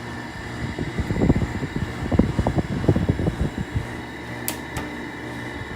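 Sharp 6,000 BTU window air conditioner running on low cool, a steady hum with fan noise, with an irregular rattle for the first few seconds from cabinet screws not tightened all the way. Two sharp clicks near the end.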